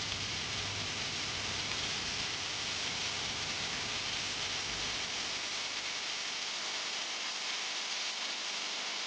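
Steady rushing hiss of water running down the waterfall.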